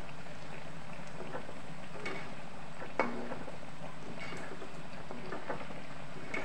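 Chickpea tikkis deep-frying in hot oil in an iron kadai: a steady sizzle with scattered small crackles, and one sharper click about three seconds in.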